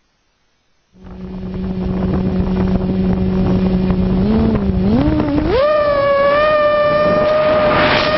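Motor whine that starts abruptly about a second in as a steady low hum, wavers in pitch, then steps up to a higher steady whine about five and a half seconds in, with a rushing hiss swelling near the end.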